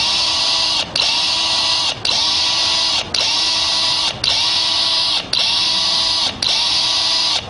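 Electronic dance music track: a harsh, hissing loop repeats about once a second, each cycle cut by a short gap.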